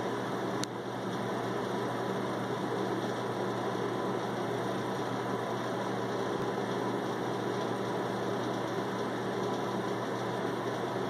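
A steady mechanical hum and hiss with no change, with a single sharp click about half a second in.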